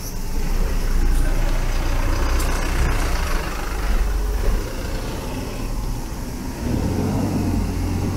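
Road traffic passing close by: cars driving past with tyre noise and engine rumble, loudest from about one to four seconds in.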